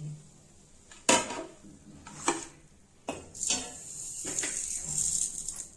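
Kitchenware clatter as a cooked paratha is taken off an iron tawa and set on a plate: four sharp knocks of plate and pan, the first about a second in and the loudest, followed by a faint high hiss.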